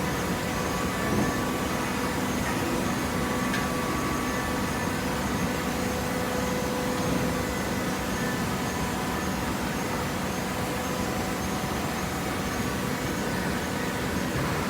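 Hydraulic baler running: the steady hum of its motor and pump, with a few thin steady tones and an occasional faint click.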